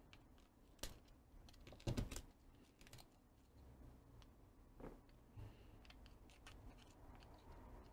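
Faint, sparse clicks and small scrapes of a screwdriver against the soldering gun's small plastic-and-metal trigger-switch parts as they are pried apart and handled. The loudest comes about two seconds in.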